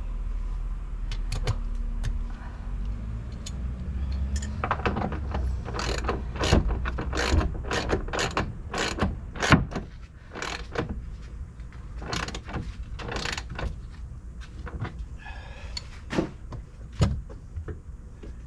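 Irregular metallic clicks, clinks and rattles of hand tools and hardware being worked on a Jeep's bolts.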